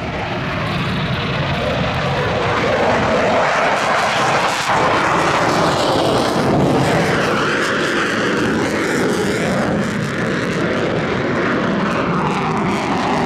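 Military jet aircraft flying past. Its engine noise builds over the first few seconds and stays loud, with a sweeping, wavering tone in the second half as it passes.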